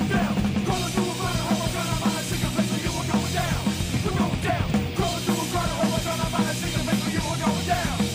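Nu metal / alt metal band recording playing at a steady, loud level, with a drum kit keeping the beat.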